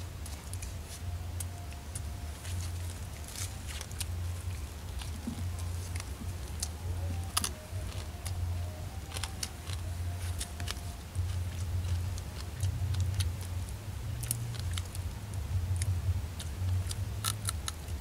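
Boiled mud crab shells and claws being cracked and picked apart by hand: scattered sharp cracks and clicks, with crinkling of the food wrapping. A steady low rumble runs underneath and is the loudest sound.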